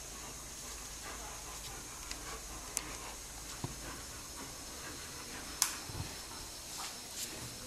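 Two sun bears play-wrestling without calling out, which is typical of play rather than aggression: a steady hiss with a few scattered light clicks and knocks from paws and claws, the sharpest about five and a half seconds in.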